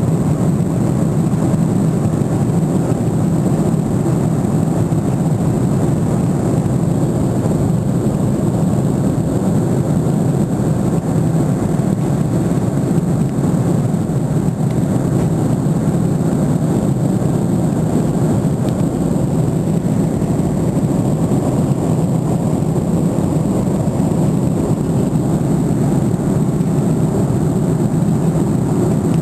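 Steady cabin noise of a jet airliner in cruise flight, the engines and rushing air heard from inside the passenger cabin, deep and even, with a thin high steady whine over it.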